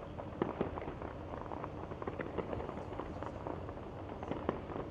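Distant fireworks popping and crackling irregularly, with a sharper bang about half a second in.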